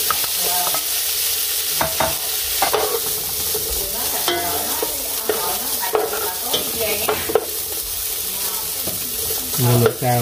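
Pieces of meat sizzling in hot oil in a nonstick frying pan while being stirred with a wooden spatula, which scrapes and taps against the pan many times.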